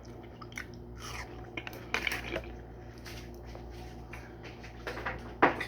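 Quiet chewing of a bite of fruit with scattered light clicks of a fork and bowl, over a steady low hum; a sharper click comes near the end.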